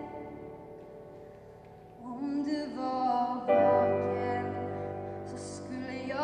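A woman singing a slow Swedish ballad to grand piano accompaniment in a reverberant church. A chord fades away, her voice comes in about two seconds in, and a fuller, louder piano chord joins a moment later.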